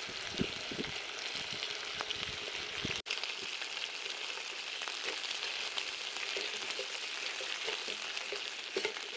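King prawns and bacon sizzling steadily in oil in a cast iron pan over a campfire, with a few light clicks in the first three seconds. The sound cuts out for an instant about three seconds in.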